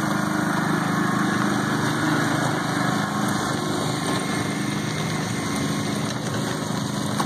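A John Deere riding garden tractor's small engine runs steadily as it tows a train of barrel cars past, easing off slightly as the tractor moves away.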